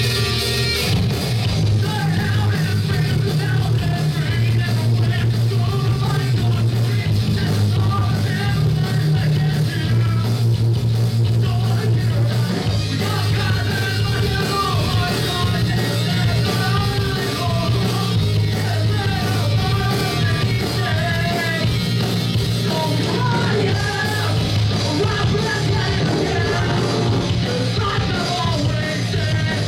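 A rock band playing live: electric guitars, bass and drums with sung and shouted vocals that come in about a second and a half in and carry on over the steady, loud band.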